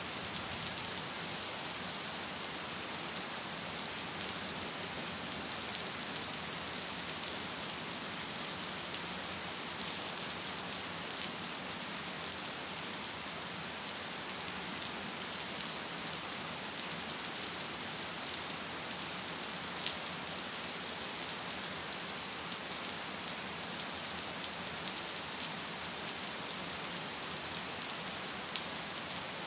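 Gentle, steady rain falling: an even hiss with faint, scattered drop ticks, holding at the same level throughout.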